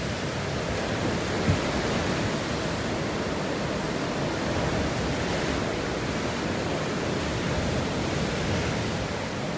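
Steady wash of sea surf mixed with wind, with a brief knock about one and a half seconds in.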